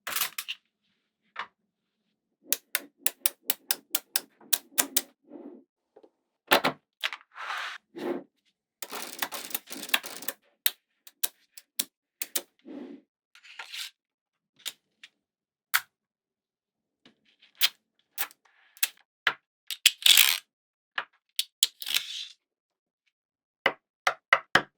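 Small magnetic balls snapping onto one another in quick runs of sharp clicks, with a few denser clattering stretches around nine seconds in and again near twenty seconds, separated by short silences.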